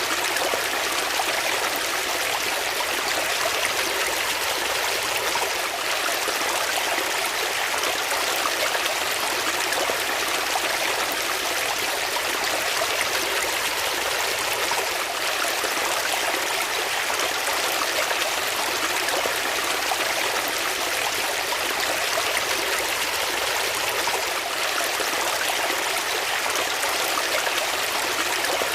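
Flowing water, a steady unbroken rush with little deep rumble.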